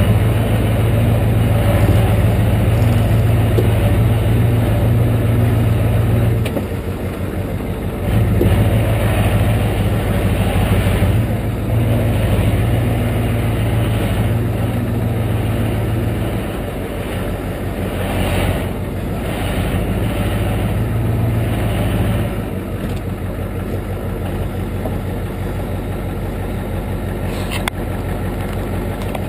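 1993 Ford F-250's 7.3-litre IDI V8 diesel running at low speed, heard close up from the front fender. The engine pulls and eases off several times: it drops back about six seconds in, comes on again, and is softer through the last several seconds.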